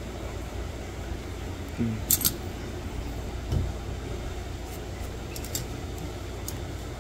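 Steel nail nipper snipping dry skin and nail at the edge of an ingrown toenail: two sharp metallic clicks about two seconds in and a few fainter clicks later, over a steady low background rumble.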